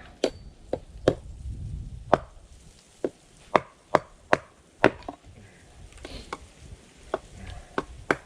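Scrap wood being chopped: a dozen or more sharp chopping strikes at uneven intervals, roughly two a second.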